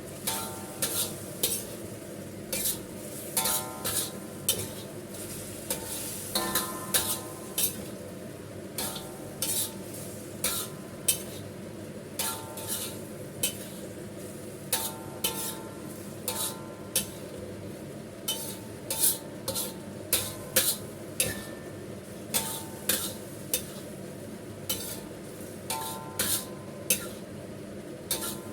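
Spatula stirring and scraping in a metal pan, clacking against it one to two times a second with a brief ring, over the steady sizzle of a thickened sauce being reduced on raised heat.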